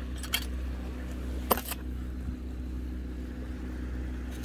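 Steady low mechanical hum, like an idling engine, with a few sharp clicks; the loudest click comes about a second and a half in.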